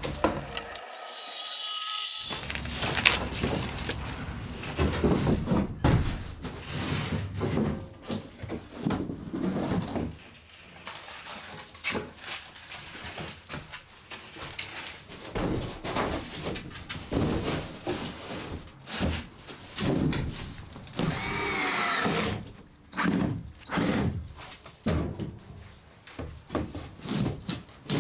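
Woodworking sounds: a power tool whines in two short spells, one near the start and one about three-quarters of the way through, amid many knocks and clatter of wood being handled.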